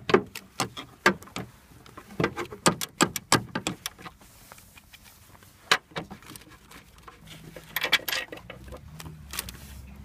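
Sharp metallic clicks and rattles of a spanner working loose the 13 mm bolts on a Saab 9-5's front engine mount, in quick irregular runs over the first few seconds and sparser after. A low steady hum comes in near the end.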